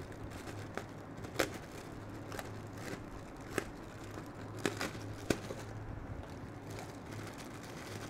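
Thin plastic bag crinkling and crackling as it is handled and pulled open, a scattered series of sharp crackles over a faint steady low hum.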